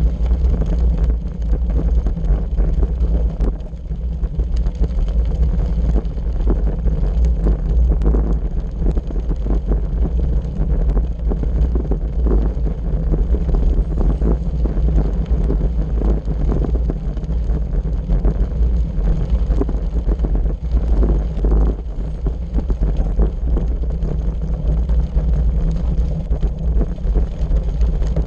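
Wind buffeting the microphone of a camera riding on a bicycle, over the steady crunch and rattle of the bicycle's tyres rolling on a loose gravel road.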